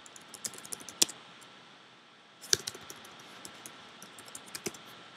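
Keystrokes on a computer keyboard, typed in short irregular runs, with two harder key strikes about a second and two and a half seconds in.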